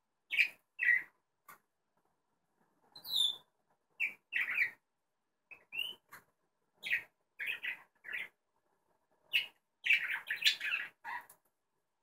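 Budgerigars chirping in short, separate calls with pauses between them, breaking into a quick run of chatter about ten seconds in.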